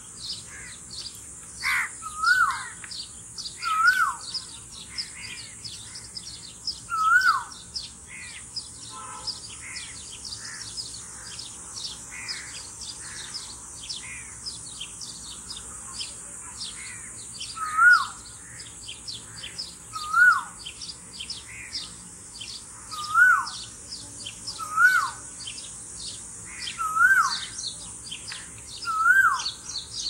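Male Asian koel calling its two-note 'ko-el', a short whistle that rises then drops, repeated every two to three seconds. It calls three times, falls silent for about ten seconds, then calls six more times. Small birds chirp high and quickly throughout behind it.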